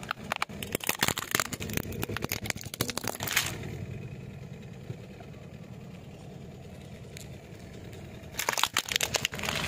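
A car tyre crushing a hard plastic toy jet ski, the plastic cracking and snapping in a rapid run of cracks for about three seconds. The car's engine idles steadily underneath, and near the end a second short burst of cracking comes as the tyre rolls over the broken toy again.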